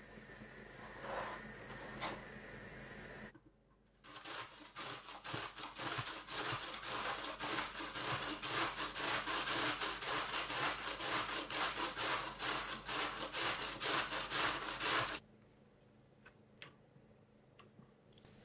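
Raw red beet grated on the coarse side of a metal box grater: quick, regular rasping strokes that start about four seconds in and stop abruptly a few seconds before the end. Before them, a soft rustle of grated carrot being scooped into a bowl.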